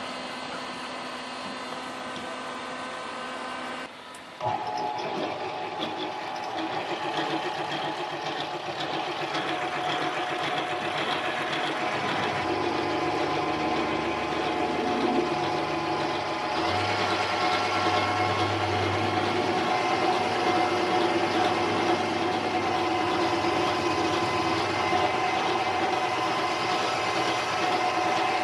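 Harbor Freight mini lathe running with a steady mechanical whine from its motor and gear drive while a 31/64 drill is fed into aluminum stock. There is a short break about four seconds in, after which it is louder, and the pitch of the whine shifts a couple of times.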